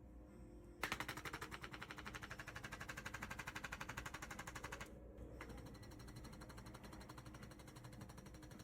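Handheld chiropractic percussor tapping rapidly and evenly against the face beside the nose, used to shake sinus congestion loose. It starts about a second in and turns quieter and duller about five seconds in.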